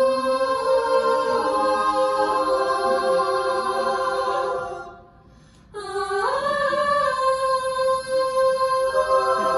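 Mixed-voice a cappella group singing a sustained, held chord that fades out about halfway through. After a brief silence a new chord swells in and is held.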